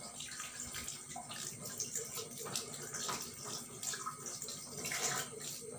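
Lime halves squeezed by hand over a plate of chilli powder: soft wet squelching with juice dripping, a string of small irregular clicks.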